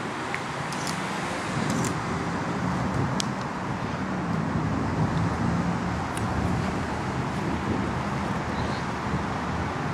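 Steady traffic rumble from the surrounding city streets, with a few faint, sharp clicks scattered over it.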